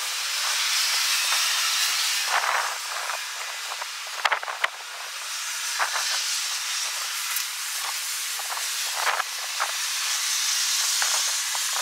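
Strong wind rushing in gusts that swell and fade every few seconds, with scattered sharp clicks and rustles.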